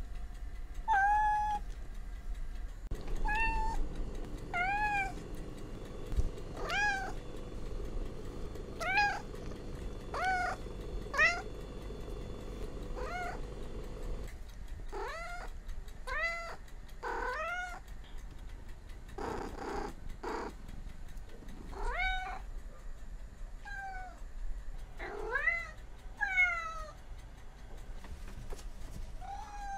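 A cat meowing over and over: a long run of short meows about a second or two apart, several arching up and then down in pitch, with two lower, rougher calls around the middle.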